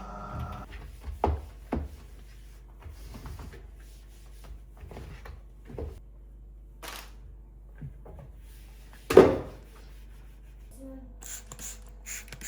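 A steady machine hum stops just under a second in, followed by scattered knocks and light clatter, the loudest a sharp knock about nine seconds in. A faint steady hum starts near the end.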